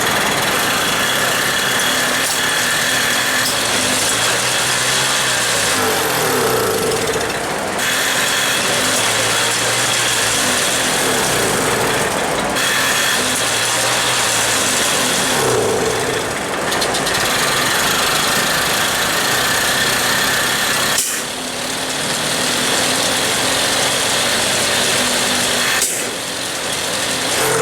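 Motobecane moped's two-stroke engine being turned over again and again in spells of a few seconds each, spinning without catching: the owner judges it flooded. A fan runs steadily alongside.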